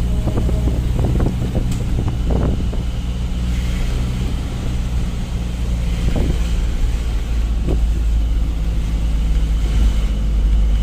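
Truck's diesel engine running steadily with a deep low rumble, heard from inside the cab.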